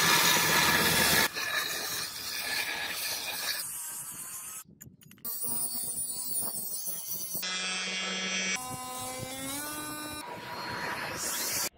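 Power tools grinding steel in a string of short clips: a belt grinder, then an angle grinder with a steady motor whine. The sound changes abruptly every few seconds, with a whine that glides in pitch near the end.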